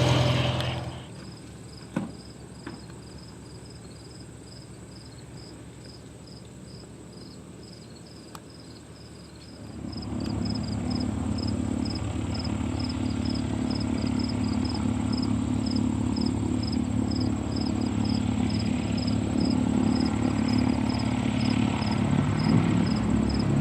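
A light propeller aircraft's piston engine comes in about ten seconds in and runs steadily, growing slowly louder.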